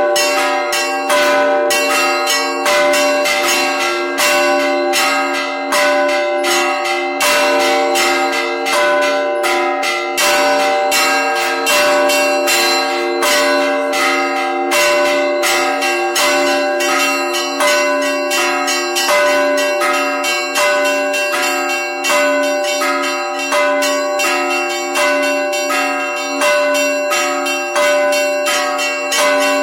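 Russian Orthodox cathedral bells rung together in a continuous peal, several strikes a second, with the bells' tones ringing on between strikes.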